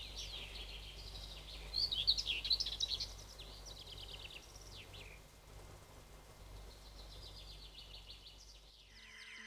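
Songbirds chirping and singing, with a quick run of loud trilled notes about two seconds in, then fainter scattered chirps, over a faint low hum.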